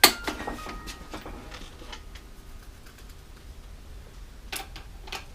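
A sharp metallic click, then a few lighter taps and clicks, with two more clicks near the end: tools and small axle parts being handled on a workbench.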